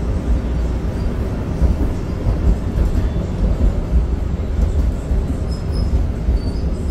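Red Line light-rail car running along its track, heard from inside the car: a steady low rumble.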